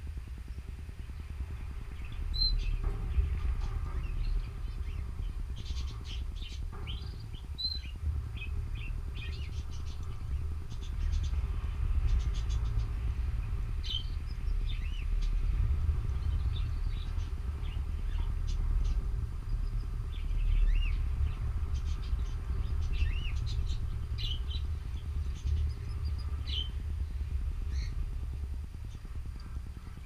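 Canaries giving short chirps and call notes, scattered throughout, over a steady low rumble.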